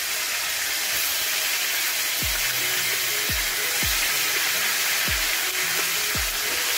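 Seasoned turkey necks sizzling in hot oil in a frying pan as pieces are laid in, a steady hiss. About two seconds in, background music starts, with a deep bass drum beating under the sizzle.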